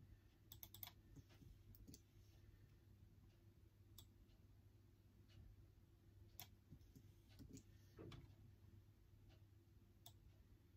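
Faint, sparse key clicks from typing on a MacBook keyboard: a quick run of a few strokes about half a second in, then single clicks every second or two. A low steady room hum runs underneath.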